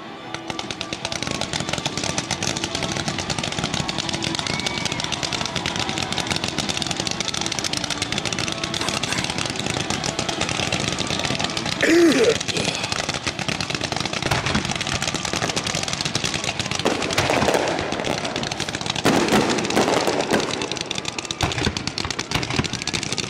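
Fireworks going off in a rapid, continuous crackle of pops and bangs, like machine-gun fire. There is a louder burst about twelve seconds in and more heavy bursts near the end.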